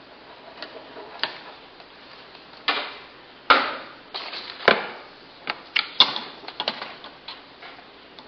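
A new push-pull choke cable being unpacked and handled: an irregular run of clicks, taps and rattles, with three louder knocks in the middle.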